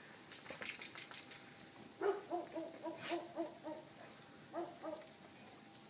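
A short burst of crackling, then a quick run of short pitched vocal calls, about four or five a second, with a brief second run about a second later.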